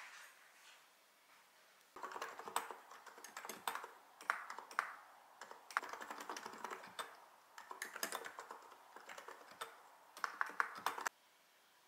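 Typing on a mechanical keyboard: runs of quick keystroke clacks, likened to the sound of bubbling stew. They start about two seconds in, come in uneven bursts and stop abruptly near the end.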